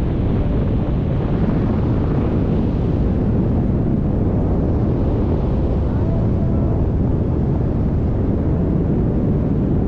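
Wind noise from the airflow of a paraglider in flight buffeting the microphone of a camera held out on a selfie stick: a steady, deep rushing.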